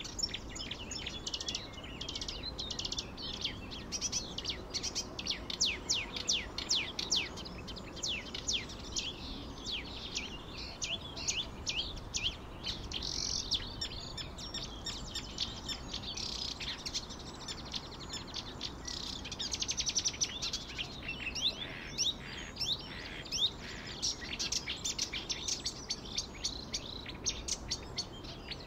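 Many small birds chirping and tweeting in quick, dense runs of short calls, busiest in a few bursts.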